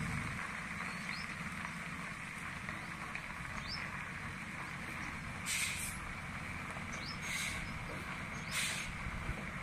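Isuzu Deca FXZ360 dump truck's diesel engine running at low speed, a steady low rumble, with three short hissing bursts about five, seven and eight and a half seconds in.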